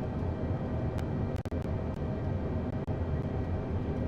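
Steady rumble and rush of engine and airflow noise on the flight deck of an Airbus airliner at touchdown and rollout, with a couple of brief clicks.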